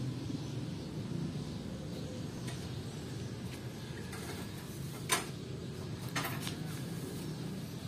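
Steady low outdoor background hum, with one sharp click about five seconds in and a short clatter of clicks about a second later.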